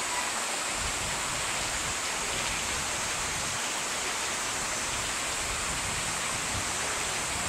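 Steady rush of falling and splashing water from a plaza fountain and rock cascade.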